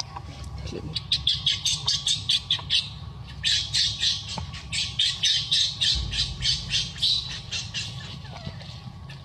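Baby macaque crying, a fast string of short, high-pitched screams at about five a second that turns into longer wailing cries, as it begs to nurse from its mother.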